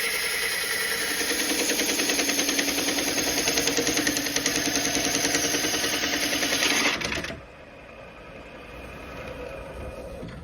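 A small machine running steadily with a fast rattle, cutting off about seven seconds in.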